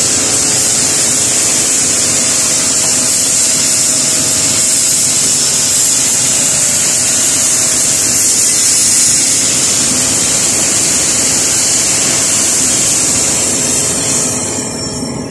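CNC plasma cutter torch cutting steel plate: a loud, steady hiss that weakens near the end.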